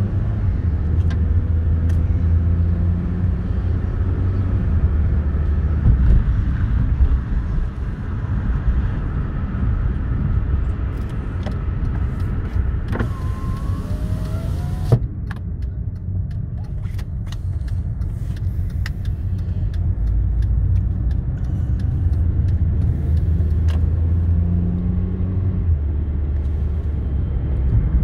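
Car driving along, heard from inside the cabin: steady low engine and road rumble, with a few faint clicks and a brief hiss about halfway through.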